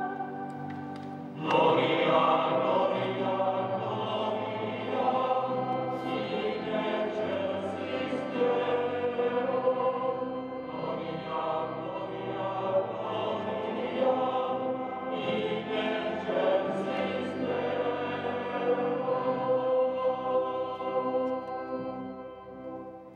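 Male choir singing a hymn with long held notes; the singing comes in louder about a second and a half in and dies away near the end.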